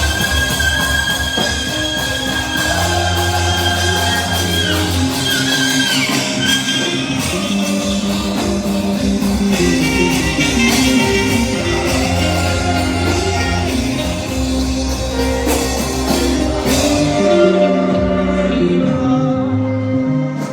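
Live worship band music: a saxophone holds long high notes for about the first five seconds over bass and drums, with singing.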